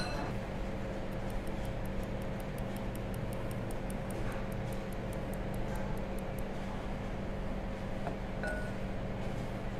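Flour being sifted through a fine-mesh metal hand sieve into a glass mixing bowl: the sieve is tapped, giving faint quick ticks, about four or five a second, for several seconds. A steady low hum runs underneath, and a brief clink sounds near the end.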